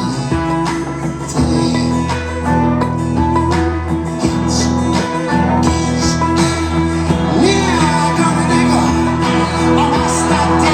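A song playing, with a singing voice over a steady bass line.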